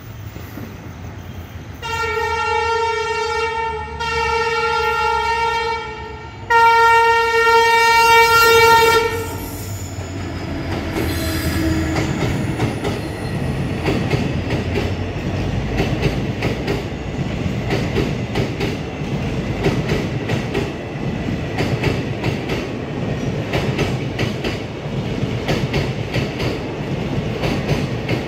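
Indian Railways train horn sounding three long blasts, the last one the longest and loudest. It is followed by the steady rumble of a train running on the track, with its wheels clattering over the rail joints.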